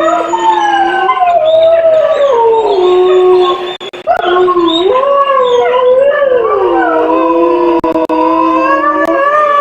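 Several gray wolves howling together in chorus, their voices overlapping: some hold steady notes while others slide up and down in pitch. There is a brief break about four seconds in.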